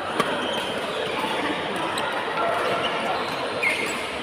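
Badminton play on an indoor court: sharp racket-on-shuttlecock hits, one just after the start and another about two seconds in, and a short shoe squeak near the end, over a steady murmur of voices in the hall.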